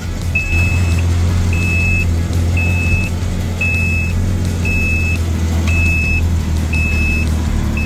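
Seatbelt warning chime of a 2025 Can-Am Maverick R X RS side-by-side, a short high beep repeating about once a second because a seatbelt is unfastened. Underneath it is the steady low running of the machine's turbocharged three-cylinder engine.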